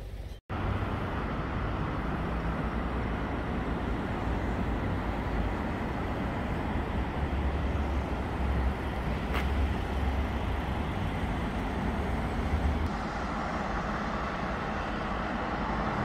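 Steady outdoor road-traffic noise with a low rumble underneath.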